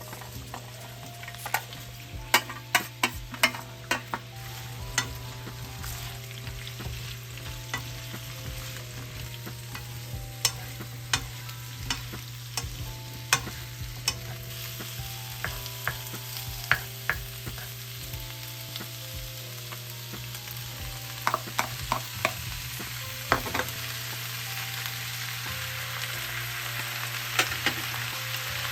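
Food sizzling in hot oil in a pan while being stir-fried for homemade jjajang, with a spatula clacking against the pan again and again. The sizzle grows louder and brighter near the end.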